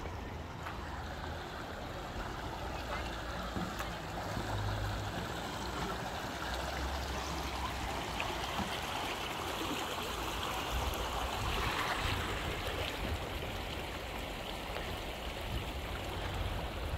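Creek water running steadily over sandstone, with faint voices of people in the background and a gusty low rumble of wind on the microphone.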